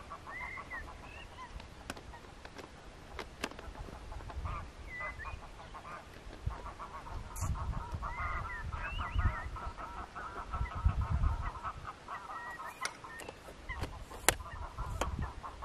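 A large flock of wild geese honking, a dense chorus of many overlapping calls that thickens in the middle, with low rumble and a few sharp clicks beneath.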